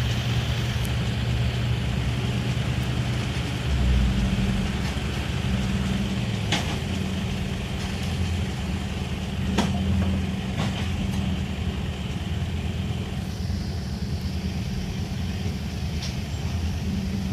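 Diesel engine of heavy machinery running steadily, its note shifting slightly a few times, with three sharp knocks between about six and eleven seconds in.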